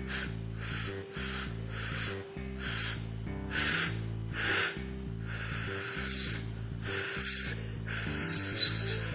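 A beatboxer practising the cricket-sound effect: air blown out between the upper teeth and the pushed-out lower lip in breathy puffs about once a second. Over the last few seconds the blows lengthen and a thin, wavering high whistle comes through, the start of the cricket chirp. Soft background music with low notes plays underneath.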